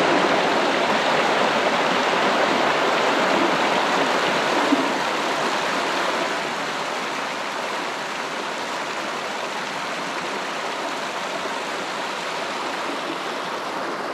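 Mountain creek water cascading and splashing over boulders in a small waterfall, a steady rushing sound that eases a little after about six seconds.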